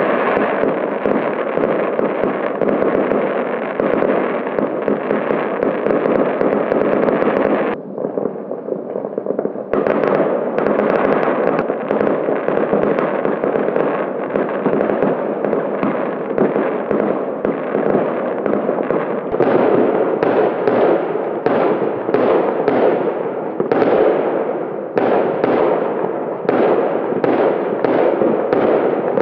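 Aerial fireworks going off in a dense, continuous barrage of bangs and crackling. The barrage eases briefly about eight seconds in, then comes back with rapid, separate cracks.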